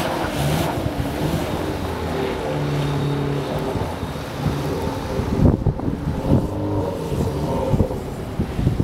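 Mitsubishi Pajero's 2.8 turbo-intercooled diesel engine revving up and down as the rear-wheel-drive SUV slides through a slalom on snow, its note fading as it drives away. Wind buffets the microphone in gusts over the second half.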